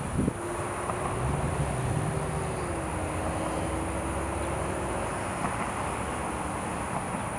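A steady mechanical drone, like a passing vehicle or machine, with a held hum that drops slightly in pitch about three seconds in.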